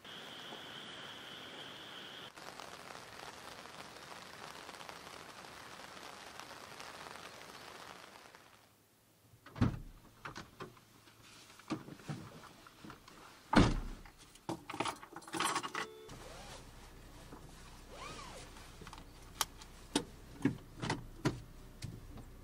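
A steady hiss for about eight seconds, then someone getting into the front of a Honda N-VAN: rustling, keys jangling and a string of thuds, the loudest a car door shutting about halfway through, followed by lighter clicks.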